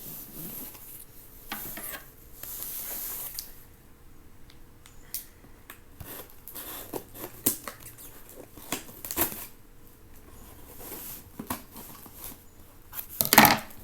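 A cardboard shipping box being handled and opened: scraping, rustling and scattered clicks, with a loud knock near the end.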